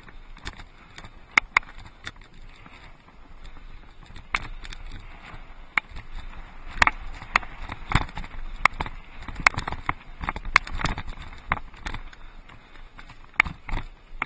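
Mountain bike rattling over a rocky dirt trail: tyres crunching on gravel and stones, with irregular sharp knocks and clatters from the bike as it jolts over rocks, busiest in the middle.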